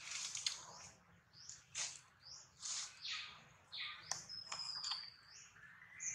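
Small birds chirping: a run of short, high chirps and squeaky notes with a few falling whistles, one every half second or so.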